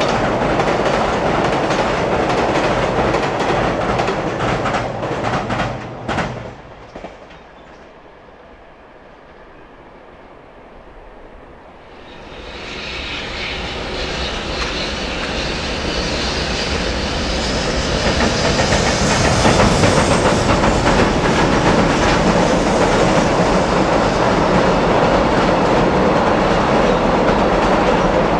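Container freight wagons clattering across a steel girder bridge, wheels clicking over the rail joints, cutting off about six seconds in. After a quieter stretch, a container freight train hauled by a JR Freight EH500 electric locomotive approaches and passes, its rumble growing louder and then holding steady as the wagons cross the bridge.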